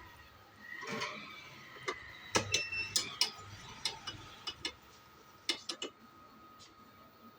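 Small metal hand tools clicking and tapping against a phone's circuit board and charging connector: a dozen or so sharp ticks, some with a brief metallic ring, bunched in the middle, over a faint steady high whine.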